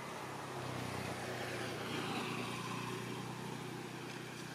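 A motor vehicle's engine hum that grows louder to a peak about halfway through and then eases off, as the vehicle goes by.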